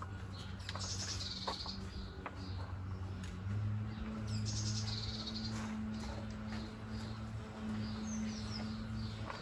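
Small birds chirping, short high calls scattered through, with a quick run of repeated chirps near the end, over a steady low hum.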